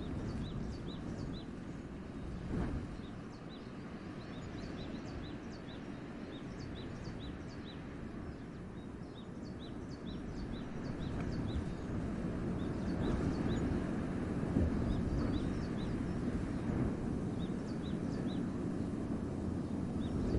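Wind blowing through a winter forest, a steady low rush that grows stronger about halfway through, with small birds giving short high chirps again and again over it.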